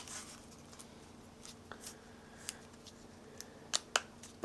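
Handling noise from a knife and its leather sheath: scattered soft clicks and taps, with two sharper clicks close together near the end, over a faint steady hum.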